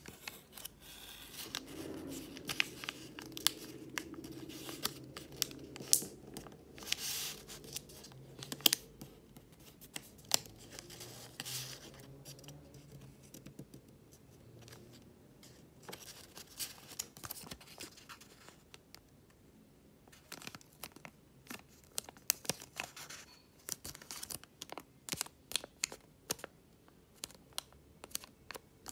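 Sheet of origami paper being folded and creased by hand: rustling and crinkling with sharp crackles as the folds are pressed flat. There is a quieter spell midway.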